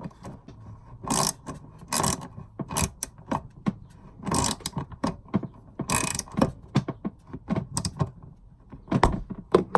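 Small hose clamp on a water-supply hose being tightened down by hand tool: a run of irregular sharp mechanical clicks, several loud ones roughly a second apart, as the clamp cinches tight.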